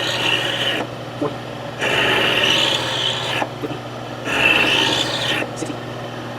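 Rasping strokes on metal, about four of them, each one to one and a half seconds with short pauses between, over a steady low hum.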